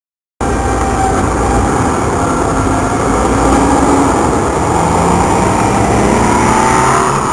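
Ford Thunderbird engine pulling under acceleration, heard from inside the car, its pitch climbing slowly over a steady rush of road and wind noise. The sound cuts in abruptly about half a second in.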